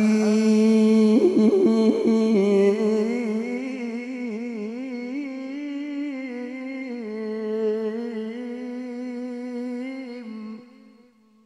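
A man chanting a Qur'an verse in melodic tilawah style, holding one long wavering note on the closing word 'al-hakim'. The note slowly fades and ends about ten and a half seconds in.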